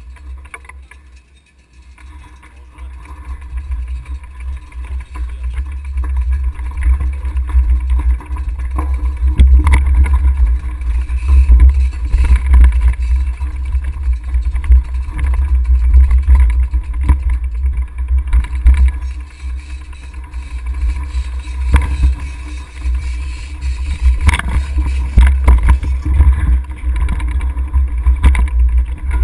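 Wind buffeting a bicycle-mounted camera's microphone as the bike rolls down a rough dirt road, with knocks and rattles from the bike jolting over bumps. It grows louder a couple of seconds in as speed picks up, then keeps gusting.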